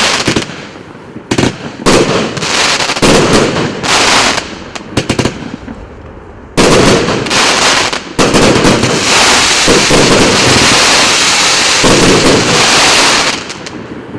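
Firework cake, a 60-shot battery of 1.25-inch shots, firing: separate volleys of bangs with short gaps, then about six and a half seconds in a dense unbroken run of bangs and crackle that dies away shortly before the end, the cake's finale.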